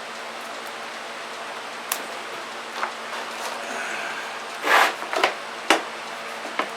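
Newly installed shop ceiling fan running with a steady whoosh. Several sharp clicks and a short rustling burst come in over it from about two seconds in, the loudest a little before the five-second mark.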